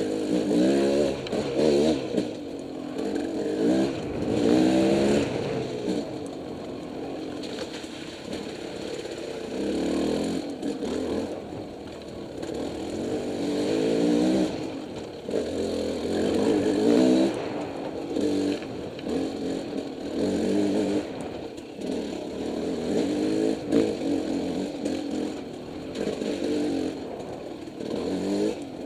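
Single-cylinder dirt bike engine under the rider's throttle, revving up in short rising pulls again and again and dropping back between them as the bike climbs and picks its way over rocks and roots.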